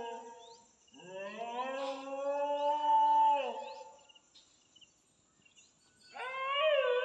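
An animal's long drawn-out calls: one trailing off just after the start, a second of about three seconds that rises and then holds its pitch, and a third starting about six seconds in.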